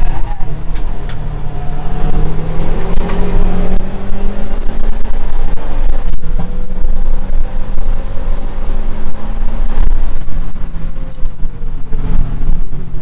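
Subaru WRX's turbocharged flat-four engine running hard at racing speed, heard from inside the cabin over road and wind noise.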